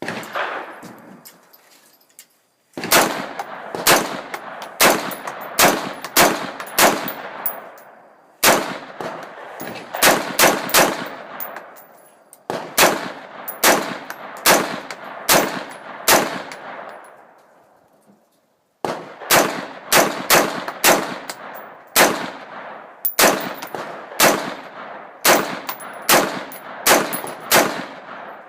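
AR-15 semi-automatic rifle fired shot after shot, about one to two shots a second, in several strings with short pauses between them. Each shot is a loud crack with an echoing tail.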